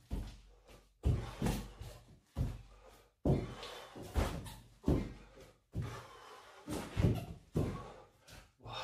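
Bare feet and hands landing on a tiled floor during jumping floor exercises: about ten dull thuds, irregularly spaced roughly a second apart.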